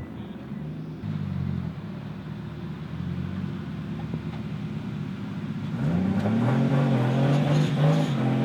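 Car engine running steadily, then revving up about six seconds in, its pitch rising and the sound getting louder.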